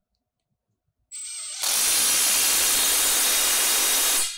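Cordless 1/4-inch impact driver tightening the nut on a grooved pipe coupling's bolt. About a second in it spins with a high whine, then half a second later it breaks into loud, steady impact hammering as the nut takes up, driving it until the coupling's bolt pads meet metal to metal, and it stops near the end.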